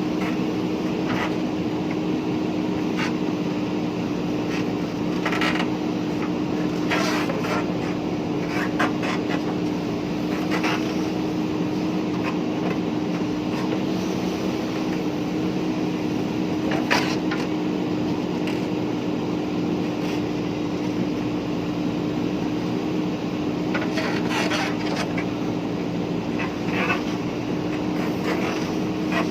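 JCB 3DX backhoe loader's diesel engine running steadily under work, with occasional short knocks and clanks from the digging.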